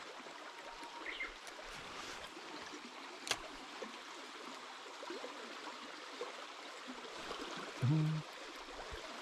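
Shallow stream running over gravel riffles, a steady gentle rush of water. There is a sharp click about three seconds in, and a brief low hum, the loudest sound, near the end.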